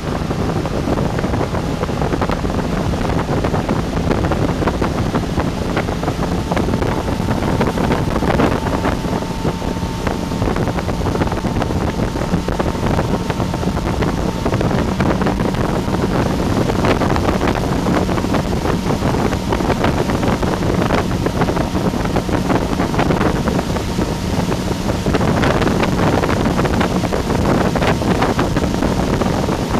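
Motorboat engine running steadily at speed with a low, even hum, mixed with wind buffeting the microphone and the rush of the churning wake.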